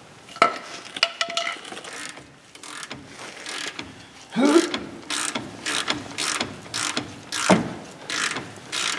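Hand ratchet and socket backing a nut or bolt off, the pawl clicking on each return stroke in a steady back-and-forth rhythm of about two strokes a second from about halfway through, after a few separate sharp clicks of the tool being fitted and worked.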